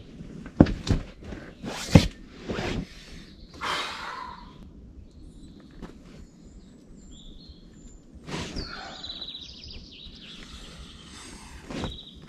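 Footsteps and knocks of a climber stepping onto a crash pad and up to the rock, a few sharp thumps in the first three seconds, then a songbird singing, with a fast high trill through the second half.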